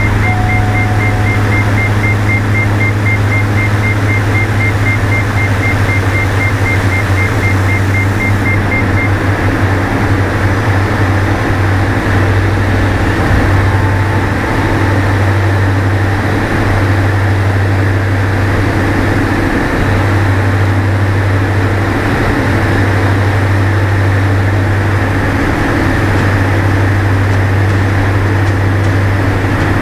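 Diamond DA42 Twin Star's two propeller engines running steadily in flight, heard from inside the cockpit as a loud, constant low drone.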